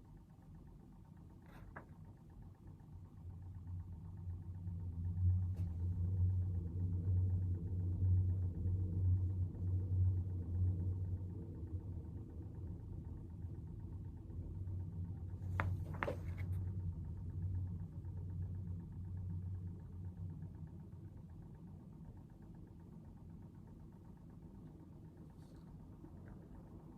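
A low, engine-like rumble swells for several seconds and then slowly fades away, with a few light clicks or knocks, the loudest about two-thirds of the way through.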